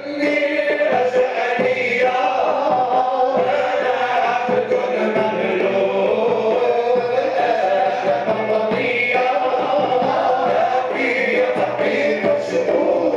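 Male Sufi choir chanting a devotional song together, many voices singing without a break.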